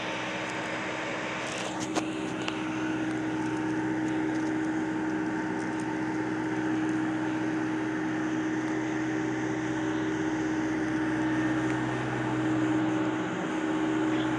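Steady mechanical drone with a constant low hum that holds one pitch throughout, and a couple of faint clicks about two seconds in.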